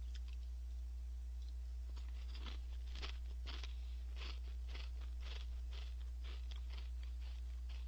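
Orion Gorae-bap whale-shaped baked crackers being crunched and chewed with the mouth close to the microphone: a run of crisp crunches about twice a second, starting about two seconds in, over a steady low hum.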